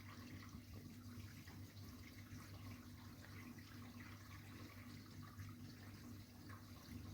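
Whirlpool dishwasher running mid-cycle, faint: water spraying and splashing inside the tub over a steady low hum from the wash pump.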